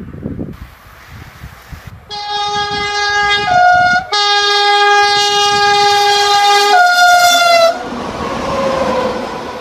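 Electric locomotive's two-tone horn sounding twice, high note then low note, the second blast long. After it, the noise of the train running past, with a tone that slides down.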